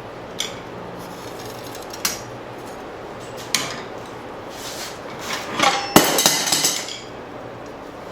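Metal clinks and clanks of steel tools on a forged steel blade: a few single taps, then a cluster of louder, ringing clanks about five to seven seconds in.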